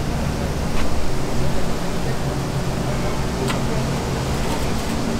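Oil bubbling and hissing in a deep fryer over a steady hum of kitchen equipment, with two light clicks as a battered hot dog on a wooden stick is lifted out and set on the steel draining rack.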